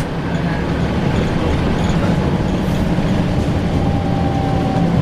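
Scania L94UB single-deck bus running with its diesel engine, a steady low drone. About four seconds in, a faint thin whine comes in, falling slightly in pitch.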